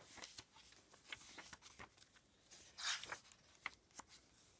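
Paper pages of a hardback journal being turned by hand: faint rustles and soft flicks, with one louder swish of a page about three seconds in.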